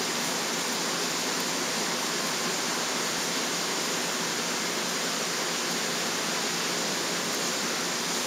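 Steady, even hiss with no separate clicks or knocks.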